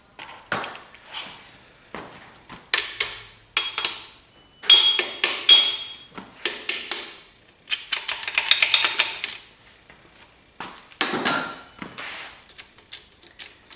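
Irregular metallic clinks, taps and knocks with a few ringing strikes: hand tools and metal engine parts knocking together as a bearing cap is worked loose from a small-block Chevy 350's bottom end.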